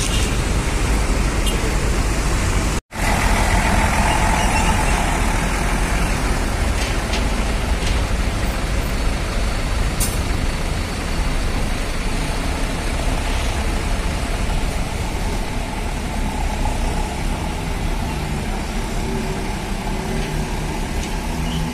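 Hino RK8 bus diesel engine running as the bus pulls away and moves slowly past. A hiss of air comes about three seconds in, over the steady engine rumble.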